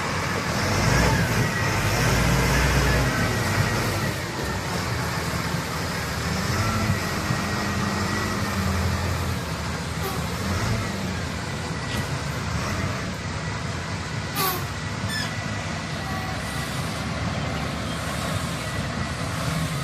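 Diesel engine of heavy earthmoving equipment, a bulldozer or wheel loader, running steadily at work, with a few sharp metallic knocks.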